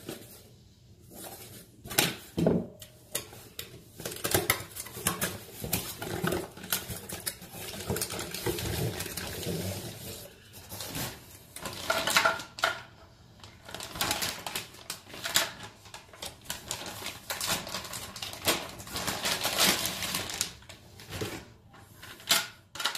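Unpacking a plastic shower caddy by hand. Cardboard box handling and knocks give way to the clear plastic wrap rustling and crinkling as it is pulled off the caddy, with light clicks and taps of hard plastic.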